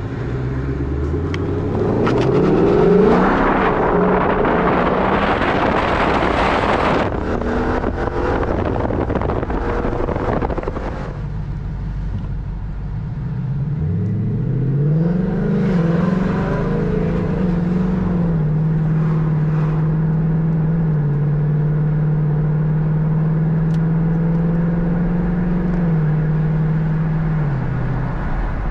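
A 2021 Mustang GT's 5.0 V8, breathing through a JLT cold air intake on a new tune, pulls hard under acceleration with the revs rising into a loud roar. It eases off, climbs again, then holds a steady cruise before backing off near the end.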